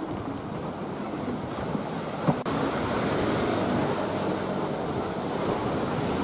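Sea surf washing against the shore, with wind buffeting the microphone. A brief knock about two seconds in.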